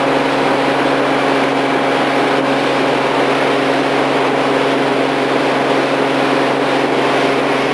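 Four Winds 195 Freedom bowrider's sterndrive engine running at a steady speed with the boat underway, its even drone mixed with the rush of wind and water.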